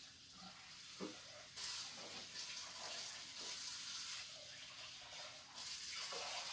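Water running from a kitchen tap into a sink, louder at times as something is rinsed under the stream, with a few soft knocks.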